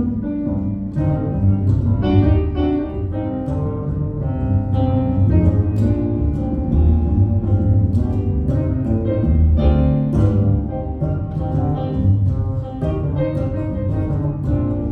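Instrumental music: a live band plays an instrumental passage of a song, with a strong bass line under busy melodic notes.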